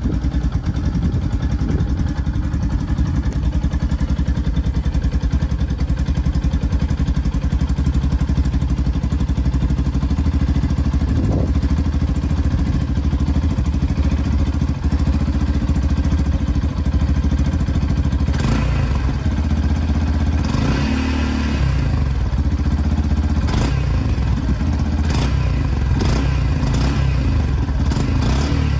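Yamaha FZ-X's single-cylinder engine idling steadily through its stock muffler, heard close up. A few light clicks and brief wavers in engine pitch come in the second half.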